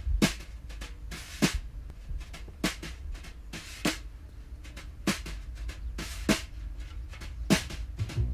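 Snare drum struck with sticks in a slow, even beat, about one hit every 1.2 seconds, seven hits, with lighter taps between them. The drum's head is damped by a leather wallet lying on it. A steady low rumble runs underneath.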